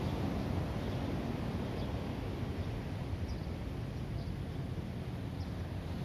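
Ocean surf breaking and washing over a rocky beach: a steady, even wash with a low rumble, and a few faint, short high chirps.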